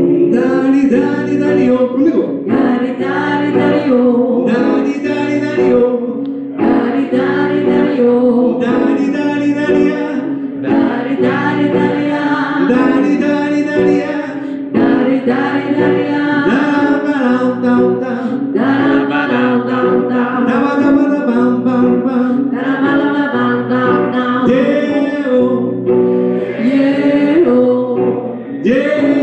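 Live music through a PA: a woman singing a song into a microphone over guitar accompaniment, in phrases of a few seconds each.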